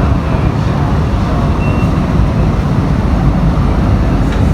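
Light-rail train running, heard from inside the carriage: a steady, even rumble of wheels and motors with no change in level.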